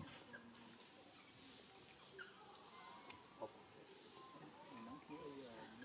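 Faint outdoor ambience with a bird's short, high chirp repeated about once a second.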